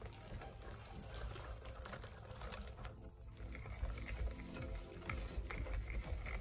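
Wire whisk beating a thick egg-yolk and flour cake batter in a glass bowl: repeated wet, sloshing strokes with light clicks of the wires against the glass, busier in the second half.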